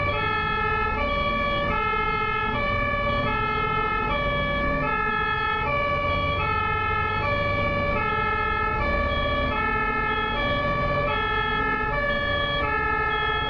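German ambulance two-tone siren (Martinshorn) alternating steadily between a low and a high note, about one high-low cycle every second and a quarter, over low road noise.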